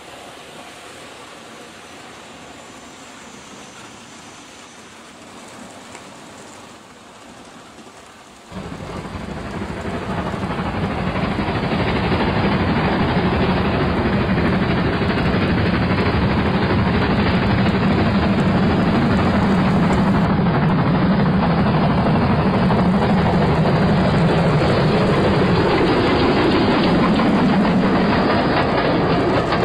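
Model railway trains running on the layout's track: a faint steady running sound, then about eight seconds in it suddenly becomes much louder, a steady rumble of wheels and motor that holds from then on.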